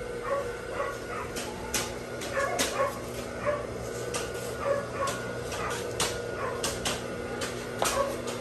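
Juki industrial sewing machines at work: a steady motor hum with scattered sharp clicks at irregular intervals. Faint short high calls come through in the background.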